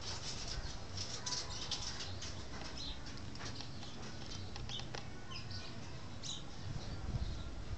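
Steady low background noise with scattered light ticks and clicks and a few brief high chirps.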